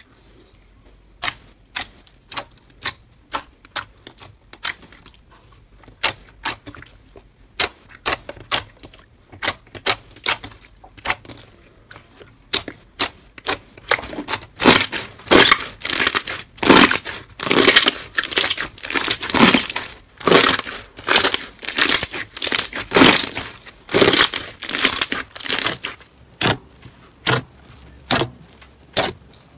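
Hands squeezing and pressing slime, giving sticky pops and crackles. They are sparse at first, then come thick and loud through the middle, and thin out again near the end.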